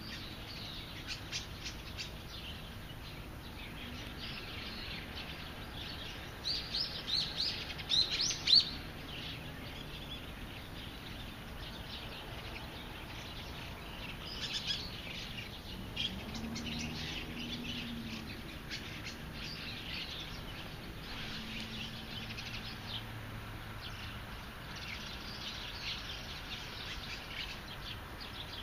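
Small birds chirping and calling, with a louder flurry of calls about seven to eight seconds in.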